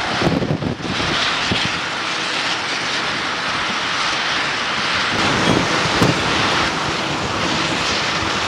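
Steady din of diesel-powered ballasting machinery at work, the self-discharge ballast train and a road-rail machine running as ballast is unloaded onto the trackbed.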